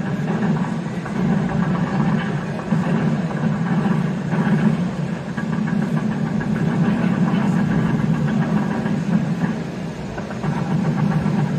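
Steady engine running sound from a sound-fitted OO9 narrow-gauge model locomotive, an even low chugging with no change in pace.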